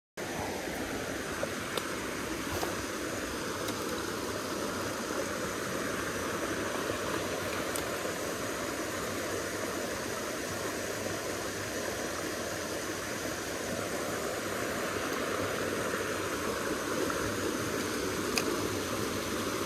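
Small mountain stream rushing steadily over rocks and a little cascade.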